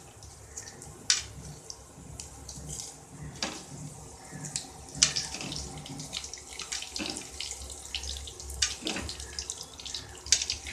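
Mustard seeds, fenugreek and urad dal frying in hot oil in a kadai for a South Indian tempering: a steady sizzle with scattered sharp crackles and pops.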